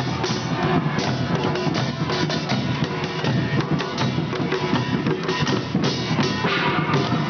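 Korean pungmul drum troupe playing on the march: many hand-held drums beaten with sticks in a fast, steady, unbroken rhythm.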